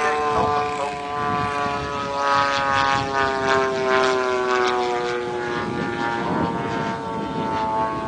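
Radio-controlled model Pitts biplane's engine and propeller running steadily in flight. Its pitch falls slowly over the first six seconds or so, then holds.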